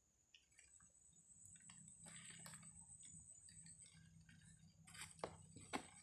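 Faint handling sounds of hands working among plants and crumpled paper and plastic wrapping in a cardboard box: scattered light rustles and clicks, with two sharper clicks near the end.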